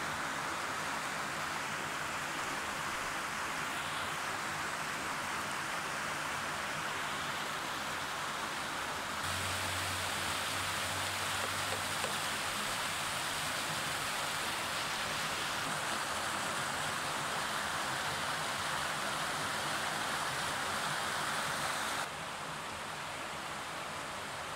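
Steady rushing of a fast, shallow river running over rocks and small rapids. It grows louder and brighter about nine seconds in and softens again near the end.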